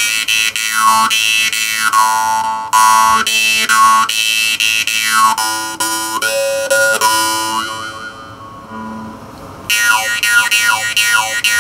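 Jaw harp handmade by Shaun Jones being played: a steady twanging drone, its reed plucked several times a second, with overtones sliding up and down as the mouth shapes the tone. Near the end the twang dies away for a moment, then starts again with quick plucks.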